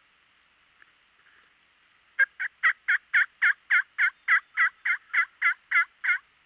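A long, evenly paced series of about fifteen turkey yelps, roughly three or four a second, starting about two seconds in.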